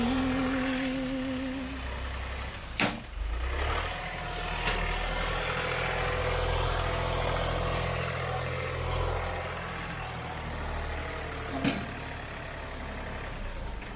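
John Deere compact tractor's diesel engine running steadily at a low speed, with two sharp knocks, one early and one near the end.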